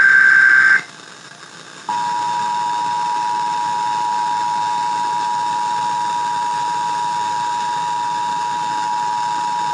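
Emergency Alert System test broadcast: the last burst of the buzzing digital SAME header data stops about a second in. About a second later the EAS two-tone attention signal starts, a steady, even alarm tone of two notes sounded together.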